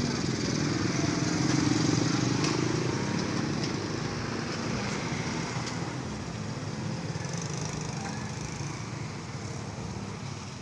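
Motorcycles and light road traffic driving over the level crossing with their engines running. The sound is loudest in the first few seconds and then slowly fades.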